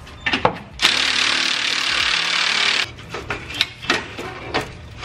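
Milwaukee cordless ratchet running on an exhaust bolt for about two seconds, starting about a second in. Sharp clicks and knocks of the tool against the fitting come before and after the run.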